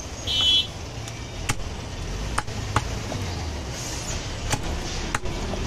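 Butcher's cleaver chopping goat meat on a wooden chopping block: about five sharp chops at irregular intervals. Near the start there is a brief, loud, high-pitched tone, and a low rumble runs underneath.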